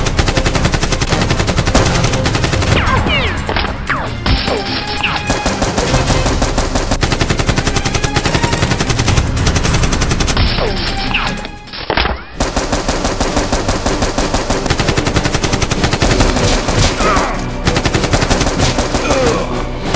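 Rapid automatic gunfire, dubbed-in sound effects rather than the blasters' own sound, running continuously with a brief break about twelve seconds in.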